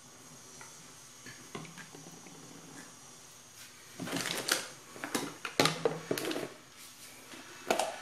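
Handling noise close to the microphone: a few faint clicks, then about halfway through a loud, irregular run of knocks and rustles as things are picked up and set down near it.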